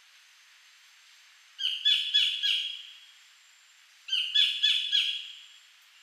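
Collared kingfisher calling: two loud phrases of about four notes each, about three notes a second, every note dropping in pitch.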